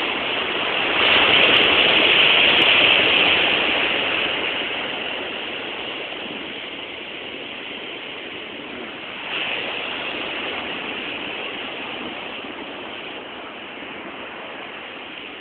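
Ocean surf: waves breaking and washing in as a steady rush. The rush swells about a second in, eases off, and rises again a little after nine seconds.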